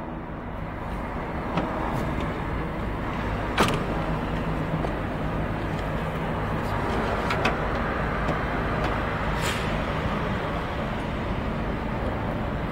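Steady mechanical hum around an electric truck at a fast charger, with a few sharp clicks and knocks as the heavy charging cable and connector are handled; the loudest click comes about three and a half seconds in.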